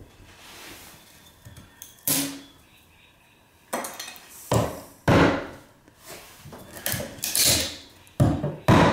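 Fencing pliers used as a hammer, knocking and prying at a painted wooden window stop and its nails. There are about eight sharp, irregular knocks with a scraping stretch between them. The stop is stuck fast under decades of paint, as if glued.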